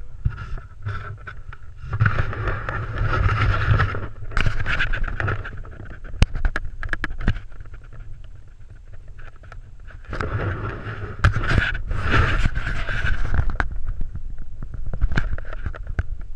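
Wind buffeting the camera's microphone as a low rumble, with two louder gusty stretches, and scattered knocks and rubbing as the camera is picked up and handled.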